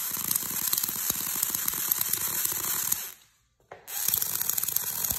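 Long high-voltage DC sparks (about 400 kV) arcing between the ball terminals of stacked diode voltage multipliers, in a rapid continuous crackle. It stops for about half a second around three seconds in, then starts again.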